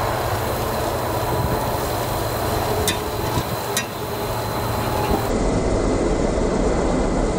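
Steady hiss of pork chops sizzling on a grill, with two sharp clicks of the metal spatula against the grate about three and four seconds in. A cut about five seconds in changes the noise, which carries on as a steady hiss.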